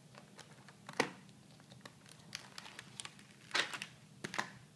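Hard plastic clicks and ticks as a phone is popped out of a snug plastic screen-protector installation tray: a sharp click about a second in, small ticks after it, and a burst of louder clicks near the end as the phone comes free.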